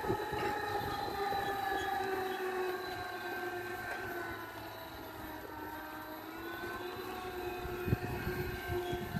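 Homemade electric power tiller's 60 V brushless DC motor and gear drive whining steadily as it runs through soil, the pitch dipping slightly midway and climbing again near the end. A single knock sounds about eight seconds in.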